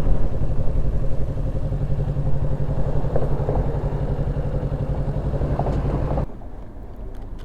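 Kawasaki KLR650 single-cylinder motorcycle engine running at low revs with an even pulsing beat, then switched off abruptly about six seconds in as the bike is parked. A few faint clicks follow in the quieter background.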